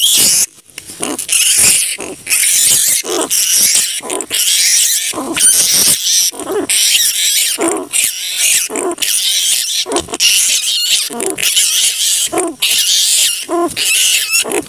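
Large flying foxes (kalong) calling: a dense chorus of harsh screeching and chattering, with a short squawk about once a second. It is a recording played as a hunting lure call.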